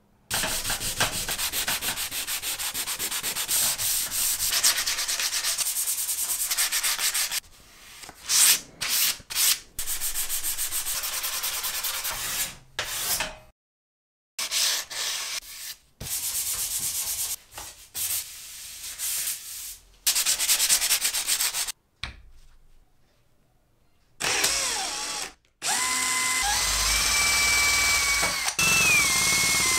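Sandpaper scrubbing over a wooden panel in several short takes, with abrupt gaps between them. Near the end a drill spins a small sanding attachment along the panel's edge, its motor whine stepping up in pitch once.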